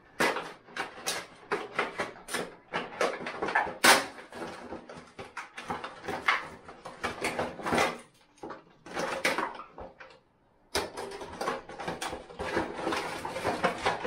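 Irregular clicks, rustles and knocks of shower faucet parts and their packaging being handled and unpacked, with two short quiet gaps past the middle.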